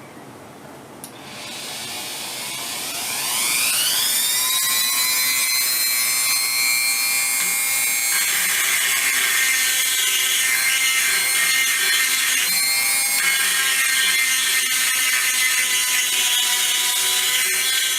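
Dremel-type rotary tool switched on about a second in. Its whine rises as it spins up to speed, then it runs steadily at a high pitch while it grinds mushroomed steel from the inside of an old mortise chisel.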